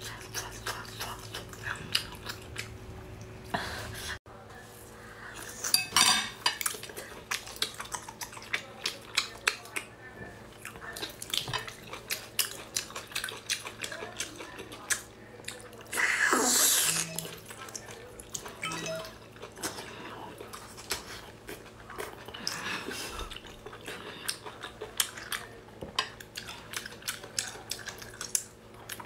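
Close-up eating sounds from a whole cooked octopus: a fork clicking and scraping on a ceramic plate, and wet, sticky sounds as the tentacles are pulled apart by hand and eaten, in many short clicks, with one longer, louder rush of sound a little past halfway.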